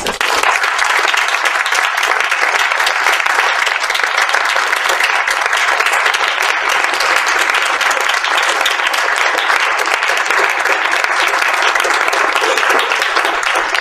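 Audience applause, a room full of people clapping steadily in a hall.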